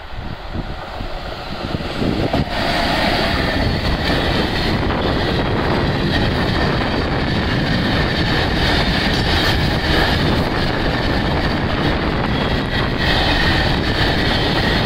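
VR Cargo freight train hauled by an electric locomotive passing close by. The noise builds over the first couple of seconds as the locomotive arrives, then a long line of open freight wagons rolls past with a steady, loud rumble of wheels on the rails.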